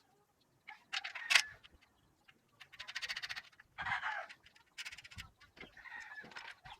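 Short, separate bursts of bird calls, a second or so apart.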